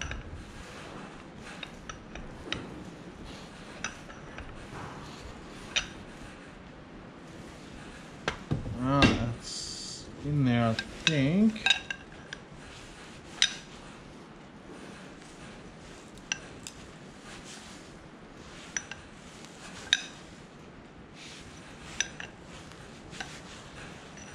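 Intermittent metallic clinks and taps of steel hand tools against the hydraulic ram's parts as a new seal is worked into the gland housing. About nine to twelve seconds in there is a louder spell with a short scrape and a few brief pitched, wavering sounds.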